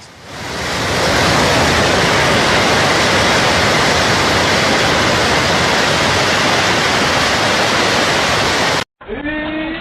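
A loud, steady rushing noise, like running water or wind, that swells in over the first second and cuts off suddenly near the end.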